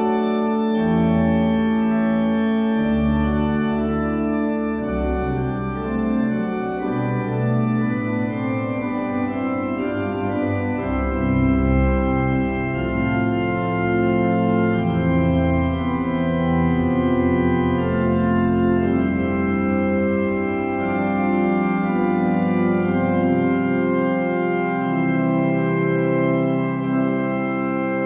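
Organ music: slow, held chords over a bass line that moves from note to note.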